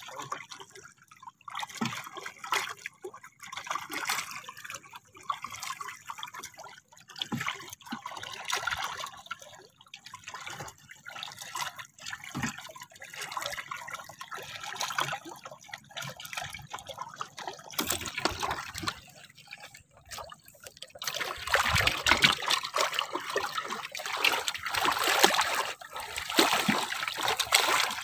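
Sea water lapping and trickling against the side of a small outrigger boat, with irregular small splashes. The splashing grows louder and busier for the last several seconds.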